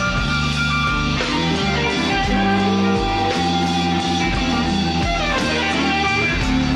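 Live slow-blues band between vocal lines: electric guitar playing lead fills with bent notes over bass and drums.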